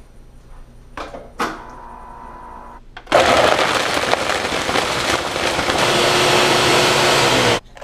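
Countertop blender running, blending a shake. The motor starts about three seconds in, runs loud and steady for about four and a half seconds, then cuts off abruptly. Before it starts there are two short knocks.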